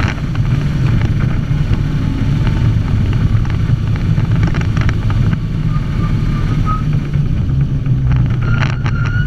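Unimog 404's petrol six-cylinder engine running steadily under way, heard from inside the cab, with a few short knocks or rattles near the end.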